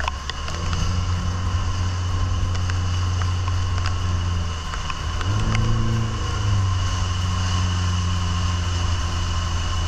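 Outboard motor running at speed, pushing a small open fishing boat through rough water, with the engine pitch rising and dropping back briefly about five seconds in. Scattered small ticks over the steady running noise.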